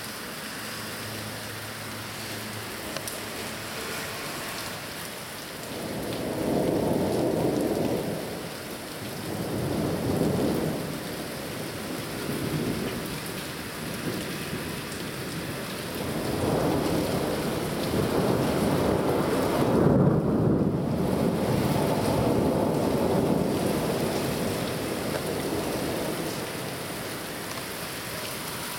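Steady rain with rolling thunder. A rumble builds about six seconds in and swells twice, then a longer, louder peal comes from about sixteen seconds, peaks a few seconds later and slowly dies away.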